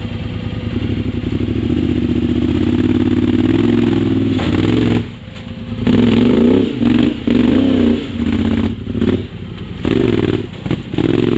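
Side-by-side UTV engine running steadily for about five seconds, then revved in short bursts about once a second.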